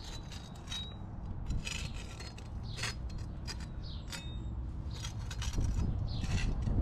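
A tooling tool scraping along a fresh bead of caulk at the joint between concrete and brick, in a series of short strokes as the bead is smoothed.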